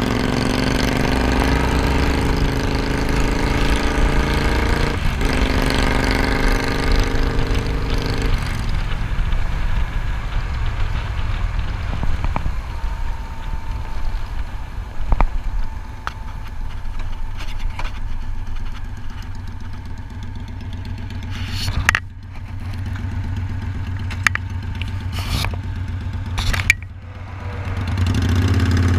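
Cruiser motorcycle's twin-cylinder engine accelerating, pitch rising with a gear change about five seconds in. About eight seconds in the throttle is rolled off and it runs lower and quieter while slowing, with a few sharp clicks. Near the end it settles into a steady low idle.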